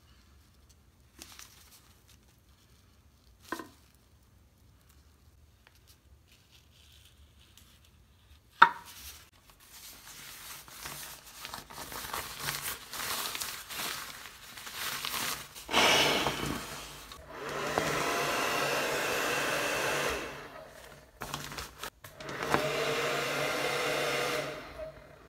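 Coated ripstop nylon crinkling as the heat-sealed piece is handled, with a sharp knock about a third of the way in. In the second half a small electric blower runs in two steady stretches of a few seconds each, inflating the sealed nylon bag.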